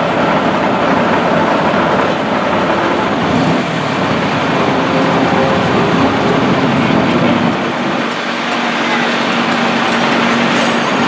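Ferry's engine running steadily, a continuous rumble and wash of noise, with a low hum that steadies about two-thirds of the way through as the boat comes in to the landing.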